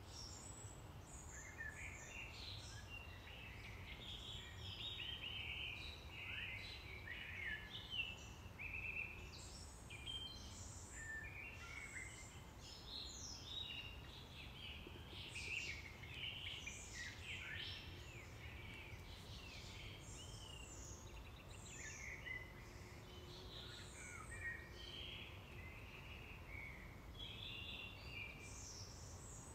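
Small birds chirping and twittering, many short overlapping calls one after another, over a low steady background rumble.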